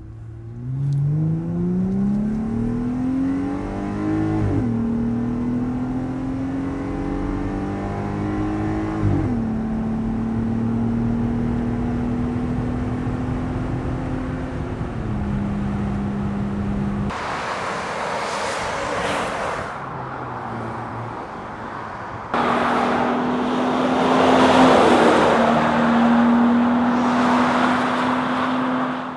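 Jeep Gladiator with a Magnaflow Street Series cat-back dual-tip exhaust, accelerating: the exhaust note rises through two upshifts, then settles to a steady cruise. Later it comes back louder, a steady exhaust note over a rush of noise, as the Jeep is driven harder.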